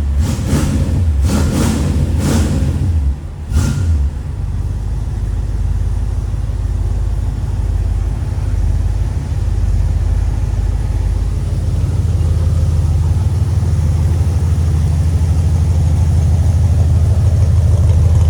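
The 327 V8 of a 1966 Chevy Impala SS idling steadily, shortly after a cold start. There are several knocks in the first four seconds, and the engine gets slightly louder in the second half.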